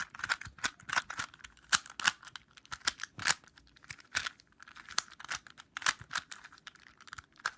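3x3 Rubik's cube being scrambled by hand: quick irregular plastic clicks and clacks as its layers are turned, several a second.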